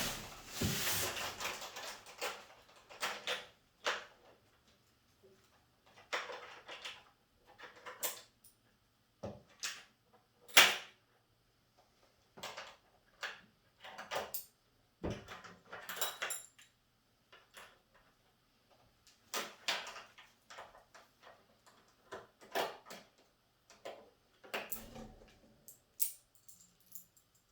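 Intermittent knocks, clicks and rustles of chicken plucker parts and packaging being handled during unboxing, with quiet gaps between; one sharp knock about ten seconds in is the loudest.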